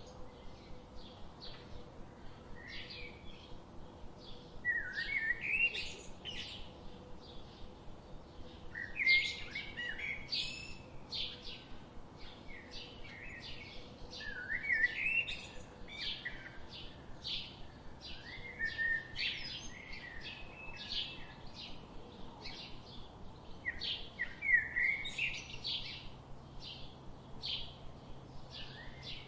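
Songbirds singing: a short phrase of quick sliding notes comes back about every five seconds over a steady run of rapid high chirps.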